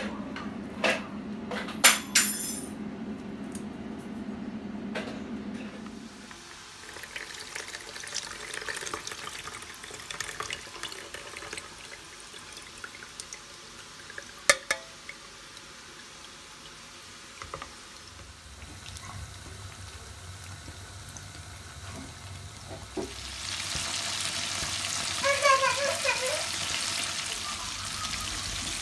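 Kitchen work at a steel sink and stove. Sharp clatters of handling in a metal sink in the first seconds give way to crackly water and rinsing sounds. From about 23 s in, a louder steady sizzle of food frying in a pot takes over, with a few short squeaks near the end.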